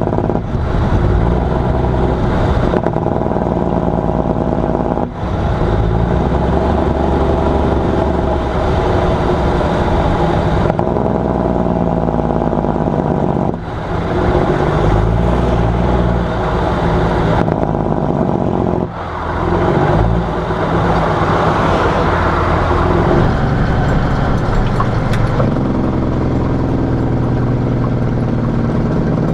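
Cummins 855 inline-six diesel in a Kenworth truck, exhausting through dual 7-inch stacks, with its Jacobs engine brake engaged: a loud, rapid, rumbling exhaust bark whose pitch shifts as engine speed changes. It comes in several stretches that change suddenly about 5, 14 and 19 seconds in.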